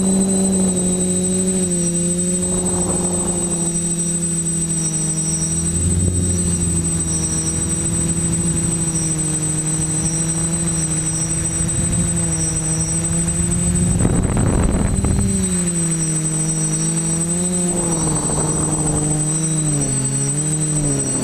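TBS Discovery quadcopter's electric motors and propellers running in flight: a steady pitched drone that wavers and steps up and down near the end as the throttle changes. Wind gusts across the microphone several times, loudest about two thirds of the way in.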